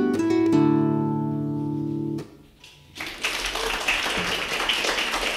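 Irish lever harp finishing a tune on a final chord that rings and is damped suddenly about two seconds in. After a brief pause, audience applause starts about three seconds in.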